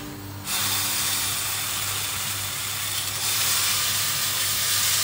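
Oil sizzling in a hot frying pan as grated-potato pancake batter is spooned in; the sizzle starts suddenly about half a second in and stays loud.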